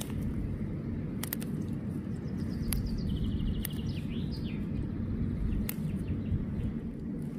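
A songbird sings briefly about three seconds in: a quick run of high notes, then a few swooping notes. Under it runs a steady low rumble, with scattered sharp clicks.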